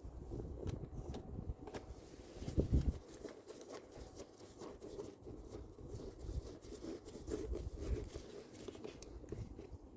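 Hands working parts and tools in an engine bay: faint scattered clicks and rustling, with a louder dull knock about two and a half seconds in.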